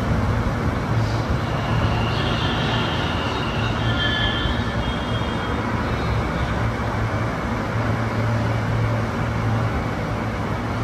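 Ahmedabad Metro Hyundai Rotem trainset: a steady rail rumble with a low hum, with faint high-pitched tones between about two and five seconds in.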